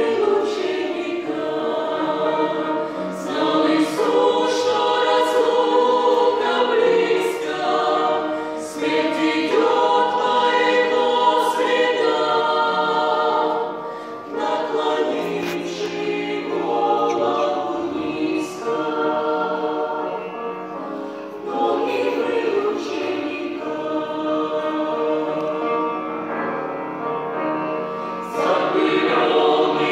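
Mixed group of men's and women's voices singing a Christian song together in harmony into microphones, in sung phrases with brief breaks between them.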